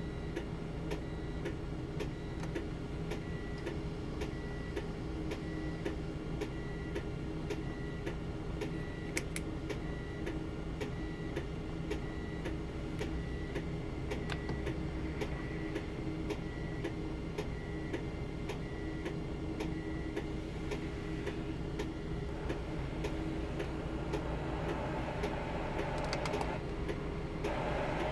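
Steady ticking, about two ticks a second, over a low hum. Near the end a hiss of radio static rises as the Blaupunkt car stereo comes on tuned to FM.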